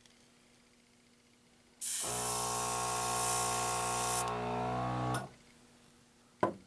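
Paint being sprayed on a model car body: a loud hiss of spray for about two seconds, starting about two seconds in, along with a steady humming tone that carries on for about a second after the hiss stops. A short click near the end.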